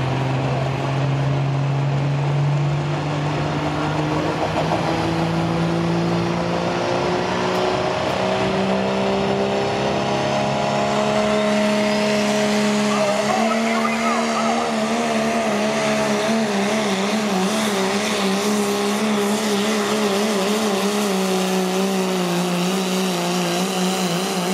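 Diesel Dodge Ram pickup pulling a weight-transfer sled under full load. The engine's pitch climbs steadily for about the first half, then holds high and wavers for the rest of the pull.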